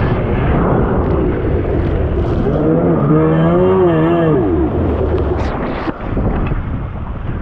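Stand-up jet ski's two-stroke engine running hard over choppy water, its pitch wavering up and down a few seconds in. About five seconds in the engine note drops away and only splashing water and wind noise are left as the rider goes into the water.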